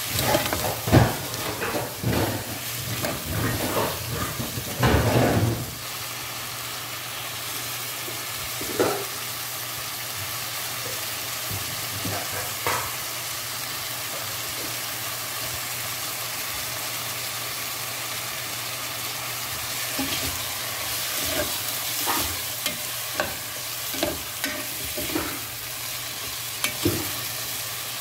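Chicken sizzling steadily in a granite-coated pot, with a metal spoon scraping and knocking against the pot as it is stirred during the first six seconds and again near the end.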